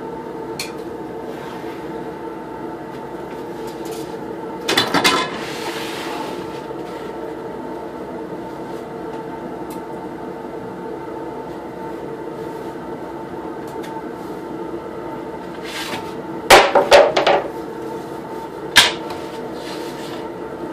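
Wood knocking and clattering against a panel on a workbench as a long wooden straightedge is moved and laid down: a short burst about five seconds in, a louder cluster near the end and one more knock just after. A steady hum runs underneath.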